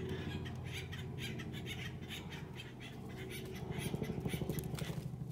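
Steller's jay giving harsh, rapidly repeated squawks, loudest about four seconds in, over a steady low hum.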